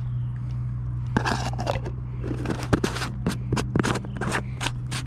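Hand rummaging in a minnow bucket to catch a live bait minnow: a scraping rustle about a second in, then a run of sharp crunching clicks and scrapes, over a steady low hum.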